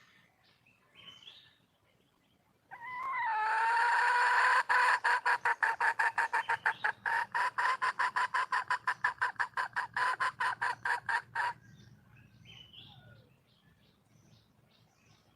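Wild junglefowl hen calling: a drawn-out note that rises at its start, then a fast even run of clucks, about six a second, lasting some seven seconds. Faint small-bird chirps around it.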